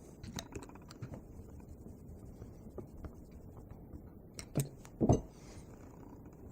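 Small clicks and taps of hand tools and small engine parts being handled on a work surface, with two louder knocks about four and a half and five seconds in.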